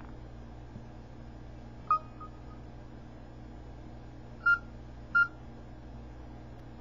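Samsung Eternity touch-screen key tones: three short dialing beeps as the screen is tapped, one about two seconds in and two more near the end, under a second apart. The phone is set to its Outdoor profile, which makes every tap sound.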